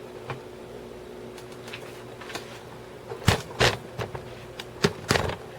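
Bookshelf speaker cabinets being handled and moved: a run of short knocks and clunks starting about three seconds in, over a steady low hum.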